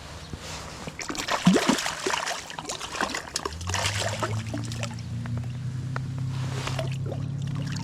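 Water splashing and sloshing in bursts as a hooked brown trout thrashes at the surface while being landed. A low steady hum comes in about halfway through.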